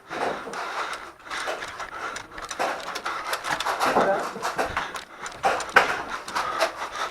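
A person breathing hard in uneven swells, with rustling and scuffing from movement.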